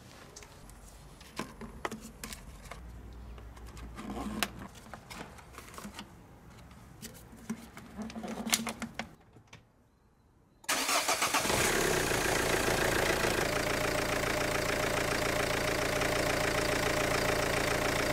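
Small clicks and knocks of hands working around the engine bay, then, about ten seconds in, the Renault Clio 2's 1.5 dCi four-cylinder common-rail diesel is heard running steadily at idle during the injector return-flow (leak-off) test.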